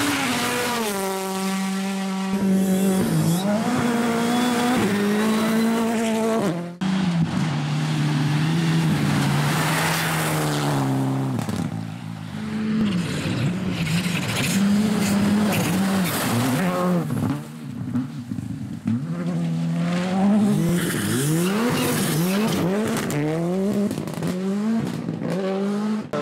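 A series of R5 rally cars, including a Citroën DS3 R5 and a Škoda Fabia R5, pass one after another at full throttle. Each engine note climbs and then drops with quick gear changes, over tyre and gravel noise.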